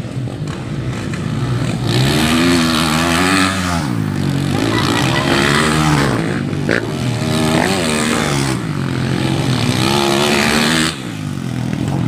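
Motocross bike engines revving up and down, their pitch rising and falling again and again, loudest through the middle and dropping off sharply near the end.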